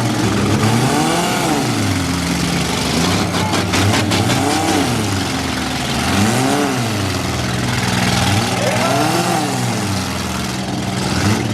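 Several demolition derby car engines revving up and falling back again and again, overlapping one another. A quick run of sharp knocks comes about three to four seconds in, likely cars colliding.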